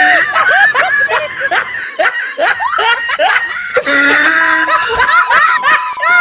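High-pitched laughter: a quick run of short rising-and-falling laughs, with a steady high tone joining over the last couple of seconds.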